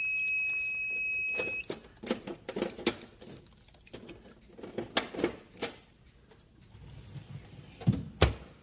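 A steady, high electronic beep lasting about two seconds, followed by scattered light clicks and knocks and two heavier thumps near the end.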